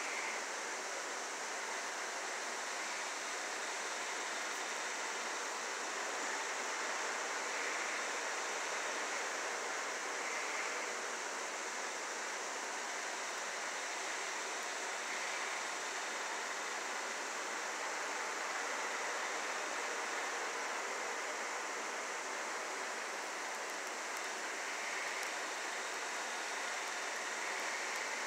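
A steady, even hiss with no music, voices or other events: the noise floor of a silent home-movie film transfer.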